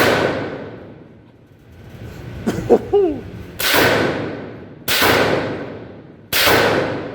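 Suppressed Bushmaster ACR rifle in .300 Blackout fired four times: one shot at the start, then three more shots between about three and a half and six and a half seconds in. Each report rings out for about a second after it.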